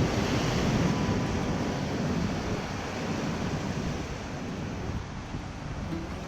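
Ocean surf washing against rocks, with wind buffeting the microphone. The wash is loudest over the first second or so and eases off after about four seconds.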